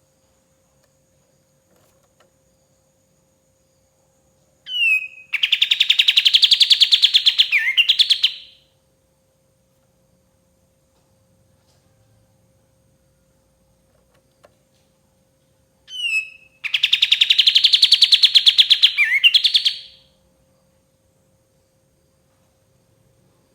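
A kapas tembak bulbul sings two loud bursts about eleven seconds apart. Each burst is a short opening note followed by a fast, rattling chatter lasting about three seconds that ends in a quick twisting flourish.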